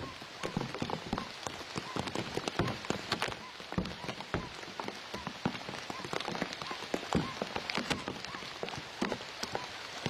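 Rain falling on the reeds and leaves around a nest: a dense, irregular run of drop hits over a steady hiss.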